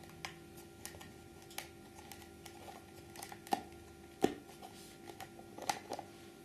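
Scattered light clicks and knocks of skull model pieces being handled and fitted together, the sharpest about three and a half, four and five and a half seconds in, over a faint steady hum.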